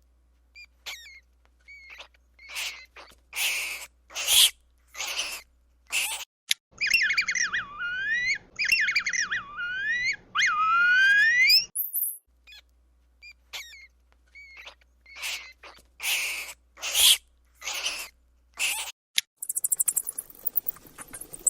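Mouse squeaks: a string of short, high squeaks with gaps between them. In the middle comes a stretch of about five seconds of quicker squeals that slide down and back up in pitch.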